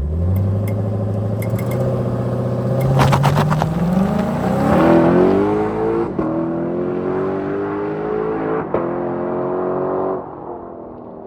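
Lexus LC 500's 5.0-litre V8, fitted with a Power Craft mid-pipe exhaust, accelerating hard, its pitch rising steadily for about ten seconds before it backs off near the end.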